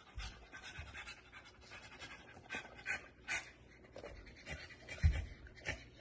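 A dog panting in quick, short breaths, with a dull thump about five seconds in.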